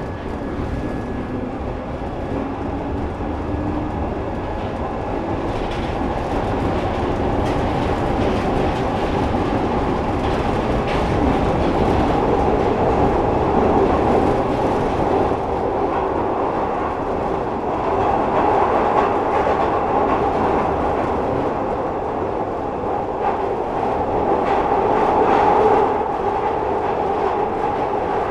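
Glasgow Subway train running on the rails with a steady rumble and wheel clatter. A faint rising motor tone comes in over the first few seconds, and the noise grows louder toward the middle.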